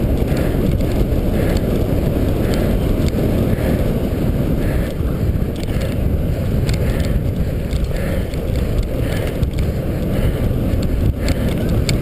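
Wind rushing over the microphone of a cyclocross racer's on-bike camera while riding, with the tyres rolling over grass and dirt. Many light clicks and rattles come from the bike.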